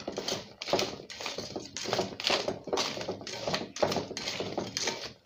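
Raw yam sticks being tossed and turned by hand in a plastic sieve basket: an irregular run of knocks and rustles, about two a second, as the pieces tumble against each other and the basket.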